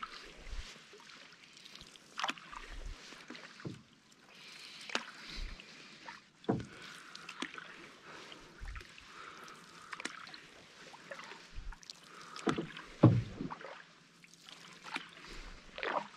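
Canoe paddling on calm water: the paddle blade dips and pulls about every one to two seconds, with splashes and drips between strokes. One louder splash or knock comes about two-thirds of the way through.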